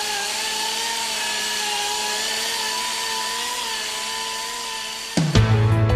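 Hand-held rotary polisher with a wool bonnet buffing the finished surface of a moulded polyester part, its motor giving a steady whine that wavers slightly in pitch. About five seconds in it gives way abruptly to music.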